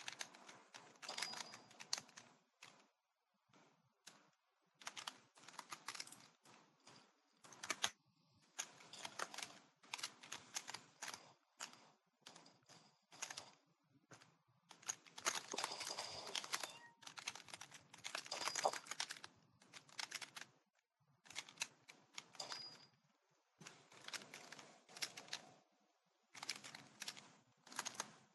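Faint, rapid keyboard typing in bursts, starting and stopping every second or two.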